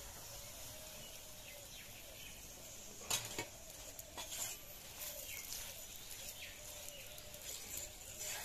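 Faint sizzling of a paratha frying in oil on an iron tawa, with a metal spatula scraping and tapping on the pan a few times. The sharpest tap comes about three seconds in.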